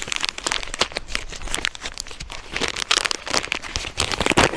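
Small paper seed bag being handled and opened in the hands, crinkling and rustling in a quick, irregular patter.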